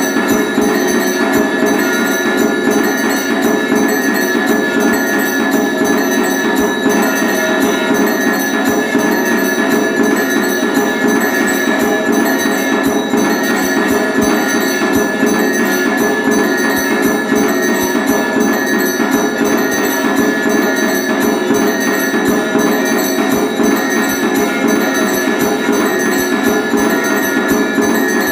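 Automatic electric temple drum-and-bell machine running, its drum beaten in rapid, continuous strokes while its bell rings steadily without pause.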